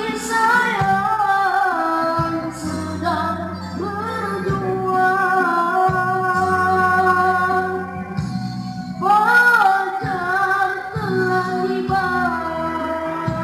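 A boy's unbroken voice singing a slow melody through a microphone, with long held notes, over amplified instrumental backing music with sustained chords.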